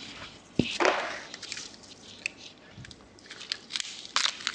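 Palm-fibre rope being hauled tight around a bundle of dry reeds: a knock and a sharp rustle of rope dragging over reed about a second in, then scattered crackles and creaks as the lashing is cinched.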